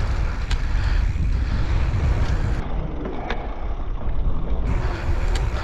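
Steady rumble of wind on the microphone while riding a mountain bike over a dirt track, with tyre noise and a few light clicks from the bike.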